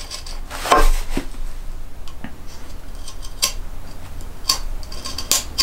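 Knife paring a chamfer on the end of a wooden axe handle and its oak wedge where they stick out of the axe eye: short, sharp cutting clicks and scrapes, about six of them spaced irregularly, the loudest about a second in.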